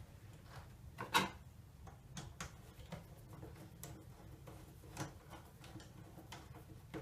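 Irregular small metallic clicks and taps of a screw and nut being fitted to a battery terminal by hand, the loudest about a second in.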